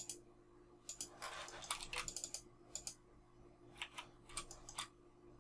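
Faint, irregular clicking of a computer keyboard and mouse, in small quick runs of keystrokes and button clicks, as shortcut keys are pressed while working in 3D modelling software.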